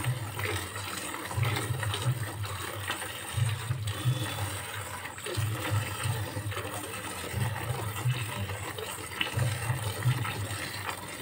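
Milk squirting by hand from a cow's teats into a nearly full bucket of foamy milk, a frothy hissing splash in quick pulses with each pull. A low hum comes and goes about every two seconds underneath.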